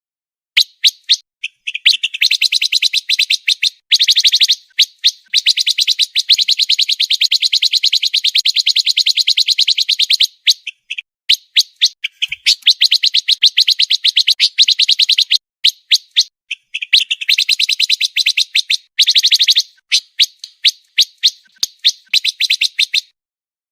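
Pancawarna songbird singing a fast, tightly packed song: long runs of rapidly repeated high notes lasting several seconds each, broken by short pauses and scattered single chirps.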